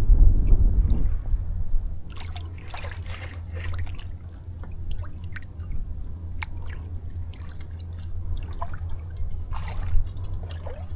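Water splashing and trickling, with many short wet clicks and splats, as a crab hook is worked into a flooded mud-crab hole. A low rumble is loudest in the first second or two.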